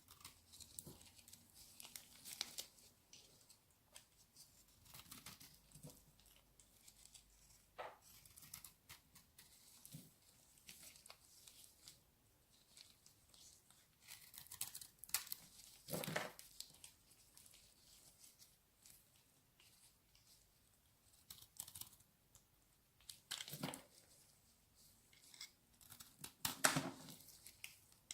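Quiet, close-miked ASMR handling sounds: intermittent scratching and crackling strokes, with a few louder knocks about halfway through and near the end.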